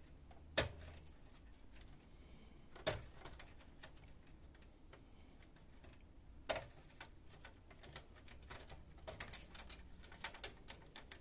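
Small plastic clicks and taps as cable connectors are worked loose from the fuser unit inside a laser printer: three sharp single clicks spread apart, then a quick run of lighter clicks and rattles near the end.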